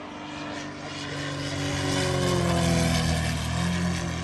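Engine of a large gas-powered radio-controlled propeller airplane flying past. It grows louder and its pitch falls as it passes, loudest about two to three seconds in.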